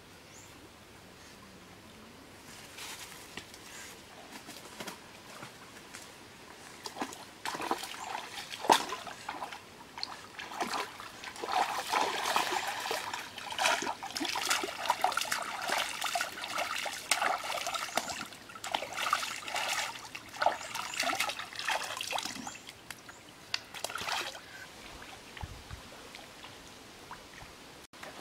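Hands scooping shallow stream water and splashing it onto a face, a run of repeated splashes and trickles that starts after a quiet opening and eases off near the end.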